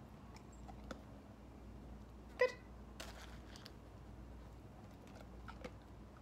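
A border collie chewing kibble, a few faint crunches over a quiet background, with one short, sharp squeak about two and a half seconds in.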